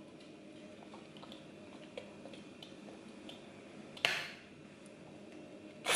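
Faint sounds of a toddler drinking water from a plastic bottle held to his mouth: small liquid ticks and drips, with two short louder sounds, about four seconds in and at the end.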